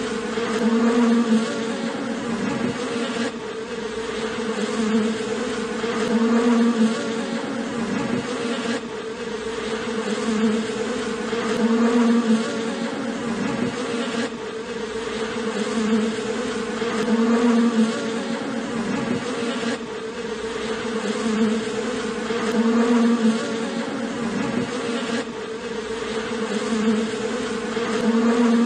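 A mass of honeybees at their nest buzzing: a steady, many-winged drone that swells and fades about every five and a half seconds.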